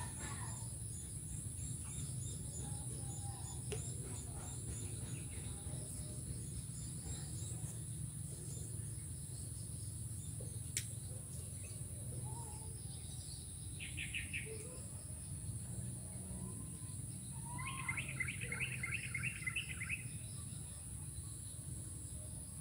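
Outdoor ambience of birds calling: scattered short chirps, and two runs of rapid repeated notes in the second half, the later one longer, over a steady high-pitched insect drone.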